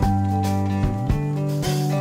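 Background music: an instrumental track with held bass and guitar notes over a steady drum beat.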